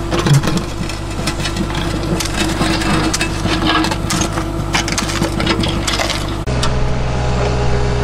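Kubota mini excavator's diesel engine running steadily while its steel bucket scrapes and scoops stony soil from a trench, with crunching of stones and the scrape of a spade in the soil. The engine hum gets louder and fuller about six and a half seconds in.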